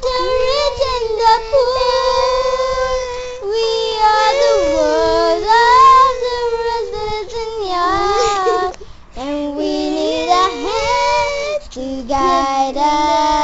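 Young girls singing a song together, holding long notes, with a short break about nine seconds in.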